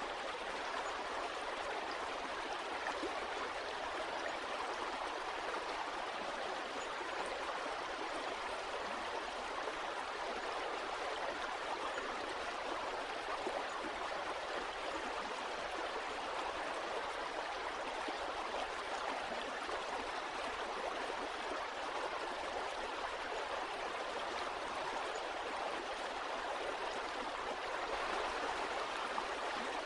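A stream of water running steadily, a constant rushing and gurgling.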